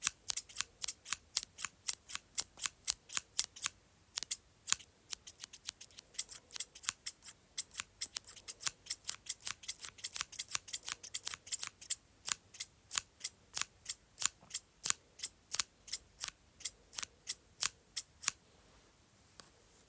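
Scissors snipping over and over, sharp quick cuts at about three to four a second, with a brief pause early on. The snipping stops shortly before the end.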